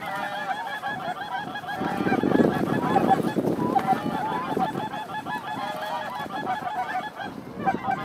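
A flock of geese calling, a dense overlapping chorus of high honks that runs on without a break. Gusts of wind rumble on the microphone underneath.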